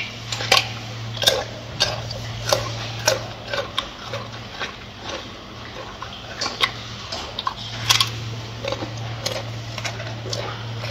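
Gorilla chewing lettuce: irregular crisp crunches, one or two a second, over a steady low hum that drops out for a few seconds in the middle.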